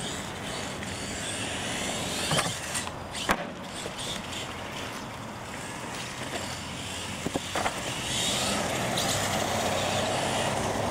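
Radio-controlled monster truck racing on concrete: the motor whines up and down in pitch over tyre noise on the pavement. Three sharp knocks come from the truck striking the ramps, two a couple of seconds in and one past the middle.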